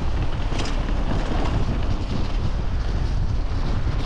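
Steady wind buffeting a GoPro action camera's microphone during a mountain-bike ride, a constant loud rumble with hiss above it.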